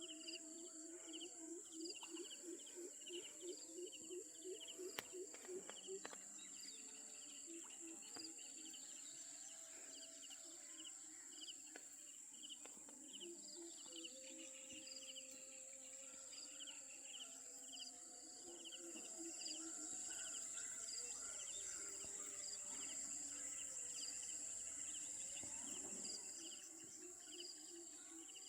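Insects chirping: a steady high-pitched drone with rapid repeated chirps over it, and runs of lower pulsing animal calls, most frequent in the first few seconds.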